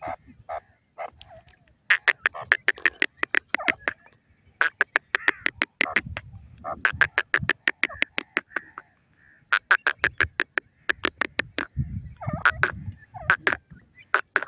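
Grey francolins calling: five runs of rapid, sharp repeated notes, about six or seven a second and each run lasting one to two seconds, with softer gliding chirps between the runs.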